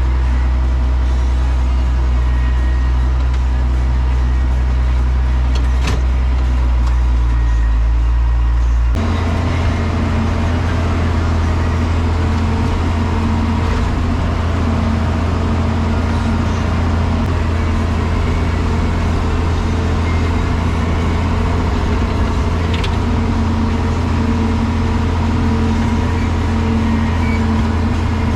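Tractor engine running steadily. About nine seconds in, its note jumps abruptly higher and then holds there.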